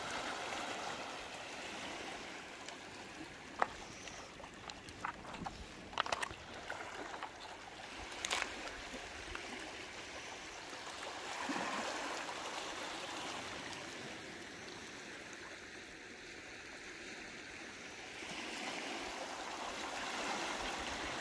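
Small waves washing in over a stony beach, swelling and easing, with a handful of sharp clicks and knocks about four to eight seconds in.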